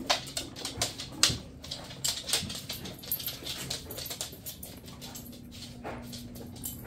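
A dog's claws clicking and tapping on a hardwood floor as it pushes a food-filled rubber Kong toy around, the toy knocking now and then. The clicks come thick and fast at first, then thin out after about three and a half seconds.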